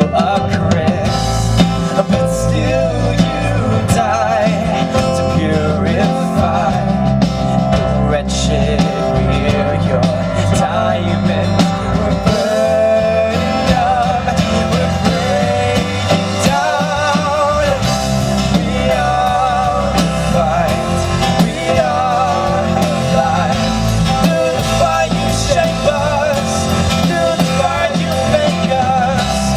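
Rock music from a band: guitar over bass and drums, with a wavering melody line and no clear sung words.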